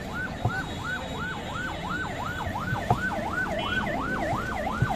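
A siren wailing in a fast yelp, its pitch sweeping up and down about three times a second, with a few dull knocks underneath.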